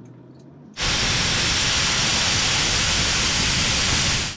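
Air hissing steadily out of a 4WD tyre as it is let down for the track. The hiss starts abruptly about a second in and stops suddenly.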